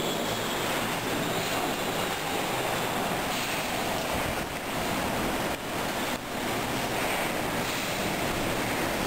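Super-typhoon wind with driving rain beating against a window, a loud, steady rushing noise with a couple of brief lulls near the middle.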